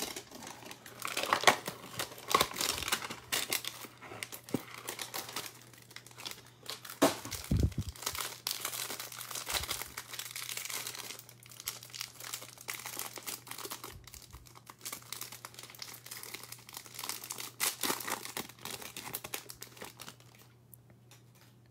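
Cardboard hanger box of trading cards being opened and the plastic wrapper around the stack of cards crinkled and torn off, in irregular crackles and rustles. It dies away near the end.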